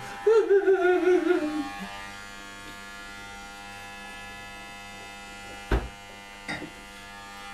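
Corded electric hair clippers running steadily with a buzzing hum while not cutting. Near the start a voice gives a drawn-out, wavering call that falls in pitch, and a sharp knock comes a little before the end.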